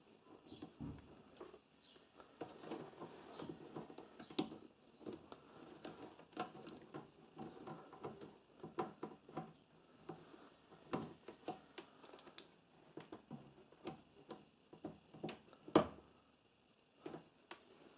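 Irregular light clicks and taps of hands at work: multimeter test probes and leads being handled and pressed onto the welder's incoming terminals and switch contacts for resistance readings. There is one sharper click late on.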